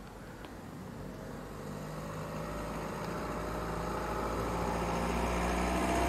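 A motor vehicle's engine running and growing steadily louder, its pitch rising slightly.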